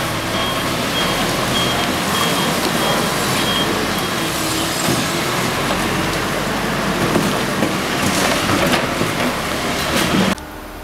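Backhoe loader's diesel engine running loudly, with a high beep repeating about twice a second for the first few seconds, like a backup alarm. The sound cuts off suddenly near the end.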